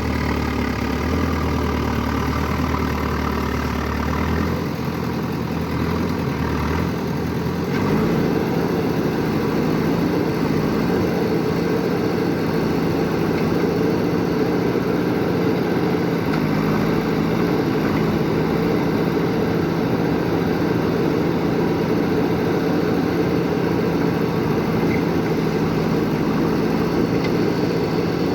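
Excavator's diesel engine running steadily; its note shifts about four seconds in and grows louder and fuller around eight seconds in, then holds steady.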